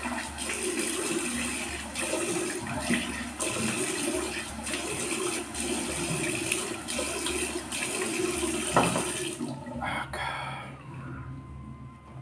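Tap water running into a sink with splashing as the face is rinsed after a wet shave. The water stops about ten seconds in.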